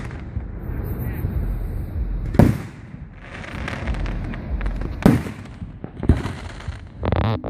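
Aerial fireworks bursting close overhead: about four sharp, loud booms a second or two apart, with rumbling and crackle between them.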